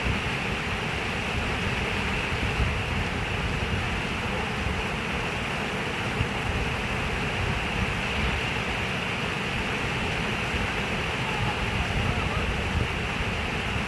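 Steady rush of running water, continuous and even, with a low rumble under it.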